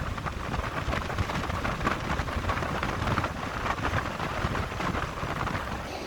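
Wind buffeting the microphone: an irregular, gusty rumble with crackling.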